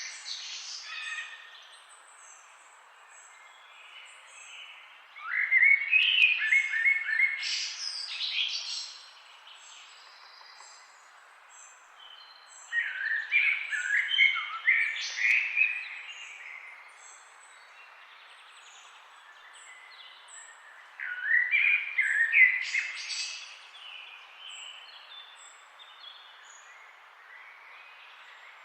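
Forest songbirds singing: one bird repeats a loud, varied song phrase of about three to four seconds three times, roughly every eight seconds, while other birds give faint high chirps throughout. Under them runs a soft, steady rush of flowing river water.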